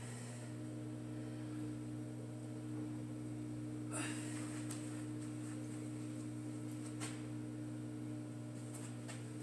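Steady low electrical hum, with two short sharp noises about four and seven seconds in.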